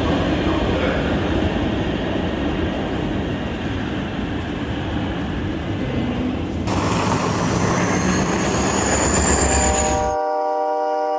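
Train running on rails with a dense rumbling roar; partway through a high whine slowly rises. Near the end a train horn sounds a steady chord of several held notes.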